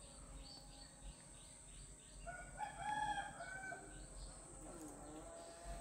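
A rooster crowing once, faintly, a couple of seconds in, over light chirping of small birds.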